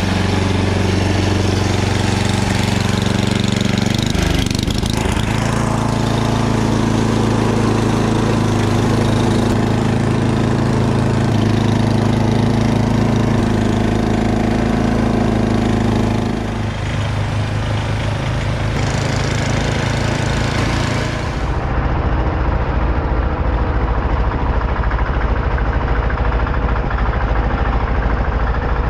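Yard-Man tracked two-stage snowblower running under load, its engine going steadily while the auger churns into snow; the engine note shifts a few times.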